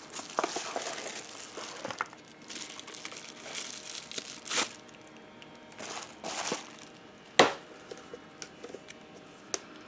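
Plastic wrapping crinkling as an item is unwrapped by hand, in several short rustles. There is one sharp click about seven seconds in and a few light ticks after it.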